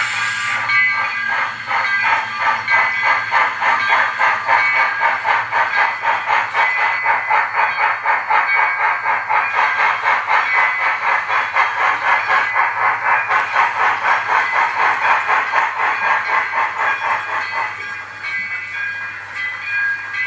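Two brass model steam locomotives running double-headed, with a steady rhythmic steam chuffing and a low hum underneath; the chuffing fades near the end.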